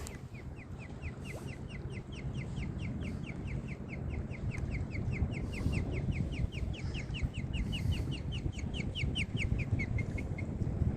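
Osprey calling: a long, even run of short, high, downward-slurred chirps, about five a second, stopping about ten seconds in, over a steady low wind-and-water rumble.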